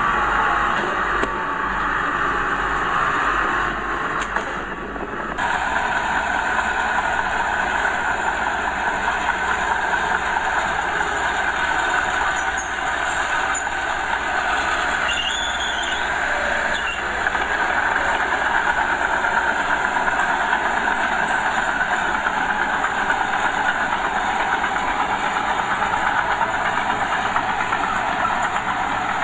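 Diesel engine of heavy earthmoving machinery running steadily at work. The sound dips and shifts abruptly about five seconds in, then carries on steadily.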